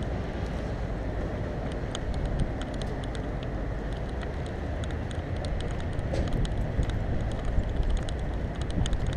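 Wind buffeting the microphone over a steady outdoor rumble of vehicles, with faint scattered clicks.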